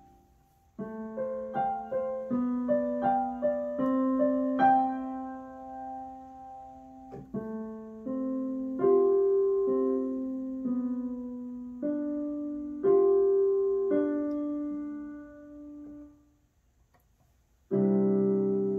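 Digital piano played slowly: single melody notes and small groups over held lower notes, starting about a second in. There is a pause of about a second near the end, then a full chord that is held.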